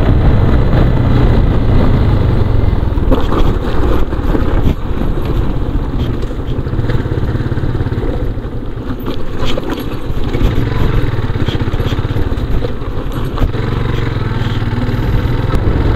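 Motorcycle riding along with its engine hum and road noise. In the middle the engine eases off while a run of clattering knocks comes through as the bike jolts over a rough gravel patch, and the hum builds again near the end.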